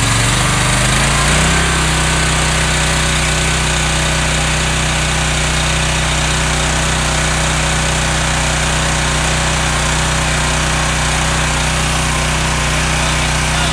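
Pressure washer engine revving up to full speed over the first second or two, then running steadily at 3,600 psi. It is feeding a snow-making machine, and there is a steady hiss of water and compressed air spraying from the nozzles as a fine mist.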